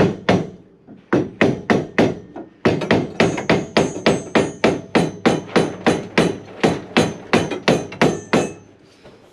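Hammer blows on a block of wood, a steady run of sharp knocks that starts out spaced and then quickens to about four a second before stopping shortly before the end, driving a part down into position.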